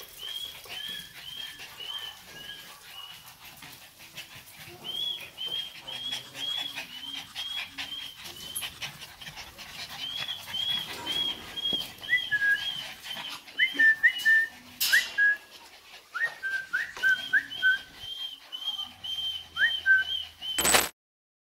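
Small kennelled dogs yipping and whining in rapid runs of short, high-pitched cries, about three a second. From about halfway through, a second dog joins with lower, sharper yelps. The sound cuts off with a click near the end.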